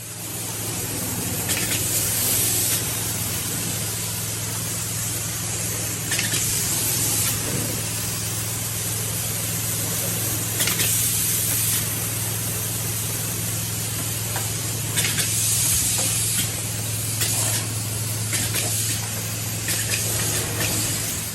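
A steady, loud hiss over a steady low hum, with brief louder surges of hiss every few seconds.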